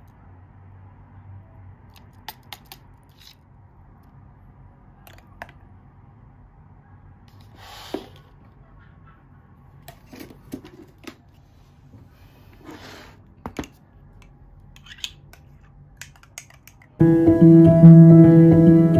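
Scattered light clicks, taps and a couple of short scrapes of a spoon scooping yogurt from a plastic tub into a glass jar and working it in the jar. About two seconds before the end, loud background piano music starts and becomes the loudest sound.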